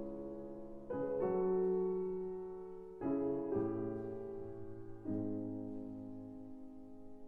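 Slow piano music: sustained chords, a new one struck about every one to two seconds and left to ring and fade.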